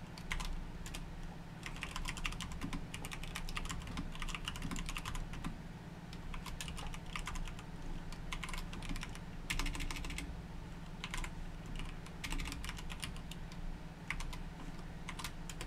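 Typing on a computer keyboard: runs of quick keystrokes broken by short pauses, over a low steady hum.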